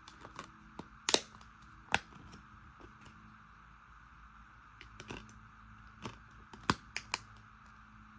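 A 4K/Blu-ray case being handled: a series of sharp plastic clicks and snaps at irregular intervals, the loudest about a second in, near two seconds, and a close cluster of three about two-thirds of the way through, over a faint steady hiss.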